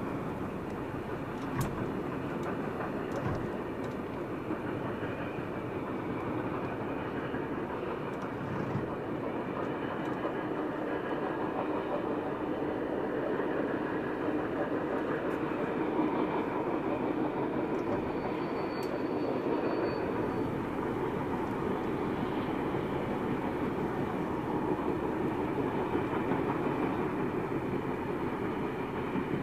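NSW 36 class steam locomotive 3642 and its excursion carriages running steadily along the line: a continuous rumble of wheels on rail, with a few sharp clicks.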